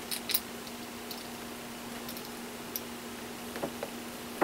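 A few faint, scattered clicks and taps of small metal hardware being handled: nuts, washers and a wire's terminal fitted by hand at a battery bank's bus bar. Under them runs a steady hum.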